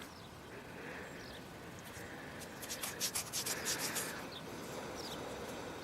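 Fingers rubbing dirt off a small dug-up coin: a faint dry scraping, with a few light clicks around three to four seconds in.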